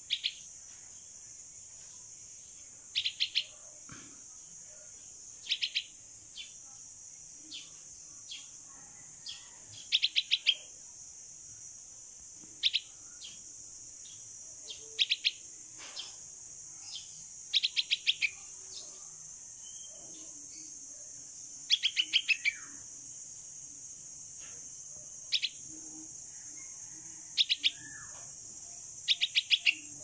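Fledgling bulbul calling for its parent: short clusters of two to four quick, high chirps, repeated every couple of seconds. A steady high hiss runs underneath.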